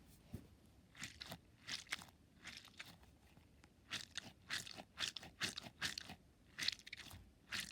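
Orbeez-filled stress ball squeezed and kneaded in the hands, giving a quiet, irregular run of short squishy crackles that grows busier about halfway through.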